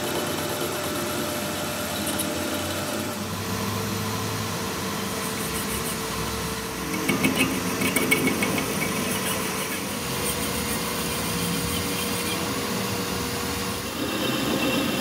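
Metal lathe running with its tool bit cutting the end of a steel shaft: a steady machine hum, with a rougher, louder stretch of cutting noise about halfway through.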